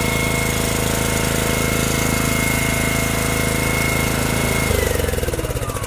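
Petrol jackhammer running steadily. A little under five seconds in its engine slows, the pitch falling as it winds down.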